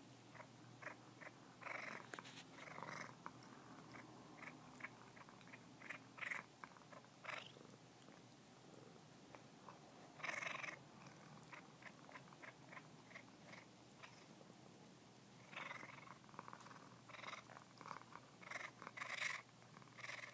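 A domestic cat purring softly while it chews and suckles on a person's finger, its mouth making irregular small clicks and smacks. This is a nursing-like chewing habit, which the owner takes for grooming behaviour.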